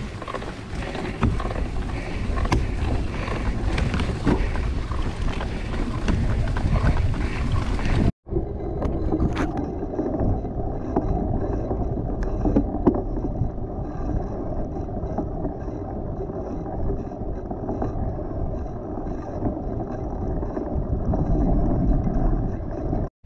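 Wind rushing over the microphone of a moving camera, mixed with the tyre and rattle noise of a gravel bike on a muddy, rutted track, with many small knocks. About eight seconds in the sound cuts out briefly and carries on as a duller, low wind rumble.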